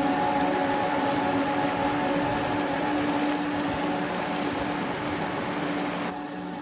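Slow ambient background music of held, droning chords over a steady hiss of rain. The hiss thins out near the end.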